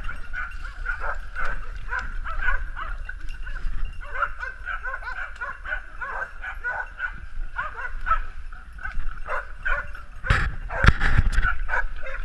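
Hunting dogs baying: rapid, repeated high yelping barks of dogs holding a wild boar at bay in cover. A few heavy thumps near the end.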